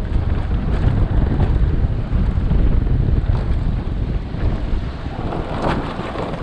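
Wind buffeting the microphone of a camera on a moving motor scooter, a steady low rumble with no clear engine note above it.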